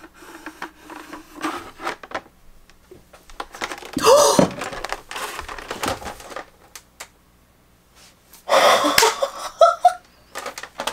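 Soft clicks and plastic crinkling as a vinyl figure is handled in its bag. Loud excited gasps come about four seconds in and again near the end.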